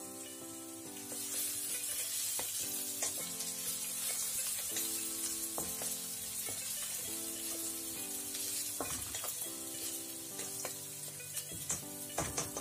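Chopped garlic and ginger sizzling steadily in hot oil in a pan, stirred with a few short spatula scrapes. Soft background music with held notes plays underneath.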